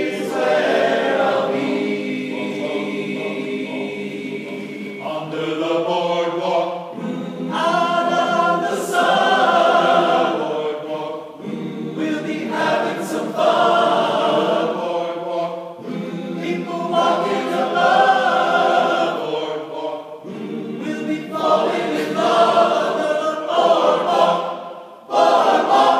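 Men's chorus singing in phrases, with short breaks between them every four or five seconds.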